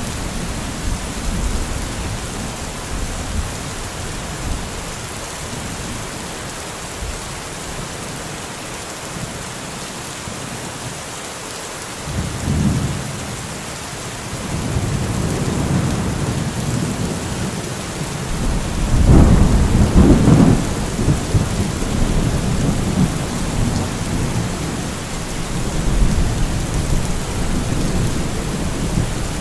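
Steady rain falling, with low rolls of thunder rising and fading several times; the loudest roll comes about two-thirds of the way through.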